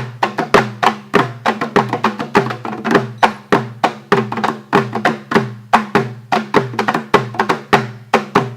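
Kerala folk percussion: drums beaten in a fast, even rhythm, several sharp strokes a second, over a low ringing drum tone.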